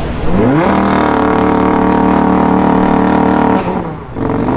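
Car engine revved hard and held at high revs for about three seconds, then the revs drop and it is revved up again near the end.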